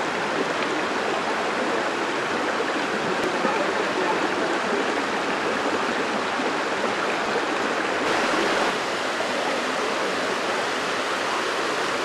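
Waterfall cascading down rock slabs: a steady, even rush of falling water.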